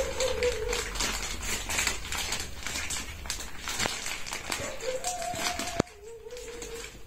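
Plastic packaging of a diaper pack crinkling and rustling as it is pulled open by hand. A thin whining note sounds several times underneath, and a sharp click comes about six seconds in.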